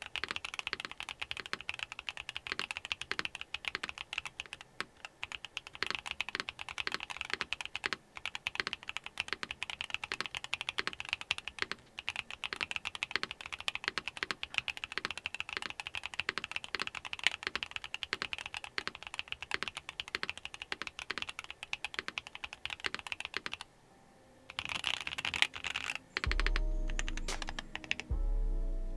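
Continuous typing on a Neo 70 mechanical keyboard fitted with Akko Creamy Purple Pro tactile switches and GMK keycaps: a quick, irregular stream of key clacks. The typing pauses briefly about 24 seconds in, and music with a low bass note comes in near the end.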